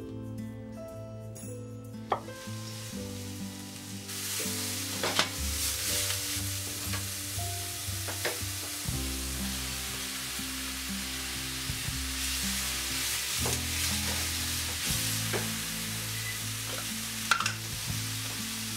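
Maitake mushrooms and komatsuna greens sizzling as they sauté in a frying pan, starting about four seconds in, stirred with a wooden spatula that gives scattered clicks. Soft background music plays underneath.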